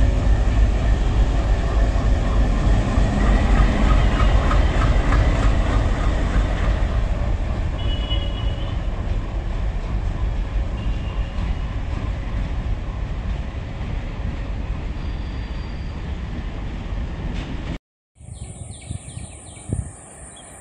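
Indian Railways WDM3A diesel-electric locomotive (ALCO 16-cylinder 251 engine) running light past at close range, its engine and wheels on the rails loud at first, then fading slowly as it moves away. It cuts off suddenly near the end, and a much quieter stretch with a steady high hiss follows.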